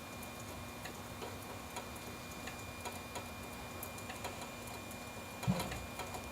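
Faint, irregularly spaced sharp ticks over a steady hum, with one louder thump about five and a half seconds in.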